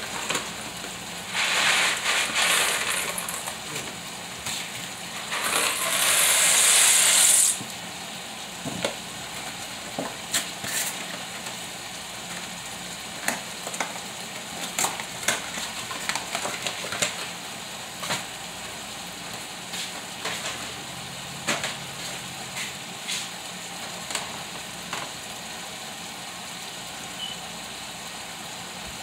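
A skillet of beef pepper steak in gravy sizzling steadily, with scattered small clicks and pops. Two louder bursts of rustling noise come in the first eight seconds, the second one lasting about two seconds.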